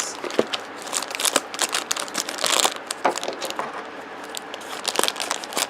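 Blind-pack toy packaging being crinkled and torn open by hand: a run of irregular crackles and rustles, loudest about two and a half seconds in.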